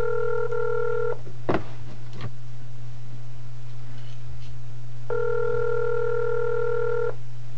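Telephone ringback tone heard down a phone line as a call rings out unanswered: one ring ending about a second in, two clicks, then another ring about two seconds long starting about five seconds in, over a steady low line hum.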